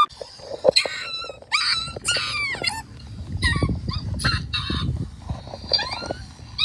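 High-pitched, squeaky cartoon-character voices: a quick run of short yelps and sliding cries, then scattered shorter squeaks, with a low rumble underneath in the middle.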